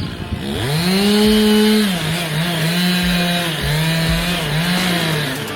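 Chainsaw revving up to full throttle and cutting into wood, its engine pitch dropping and recovering four or five times as the chain bogs under the cut.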